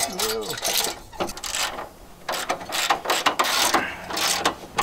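Hand socket ratchet clicking in several short bursts of strokes as bolts are tightened overhead.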